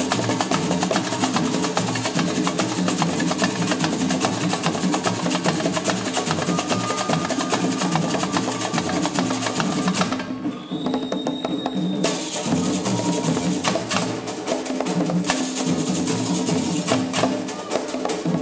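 Live samba percussion: hand drums and a high rattling layer keep up a dense, fast rhythm. About ten seconds in the high rattle drops out for around two seconds, while the drums carry on.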